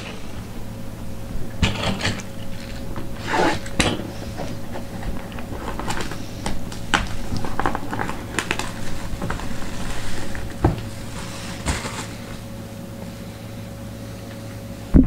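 Fingers picking and scratching at the sealed edge of a cardboard trading-card box, making scattered scrapes, rustles and small clicks over a steady low electrical hum. The handling noises die away about three seconds before the end, leaving only the hum.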